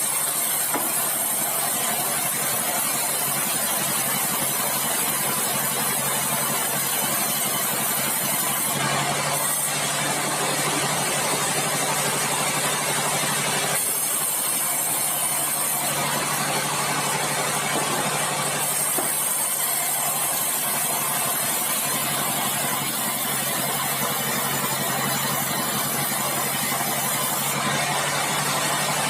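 Sawmill bandsaw running steadily with a low machine hum, and a high hiss as the blade cuts through a bengkirai hardwood log. The cutting hiss drops out briefly a few times, about nine seconds in, again in the middle, and near the end.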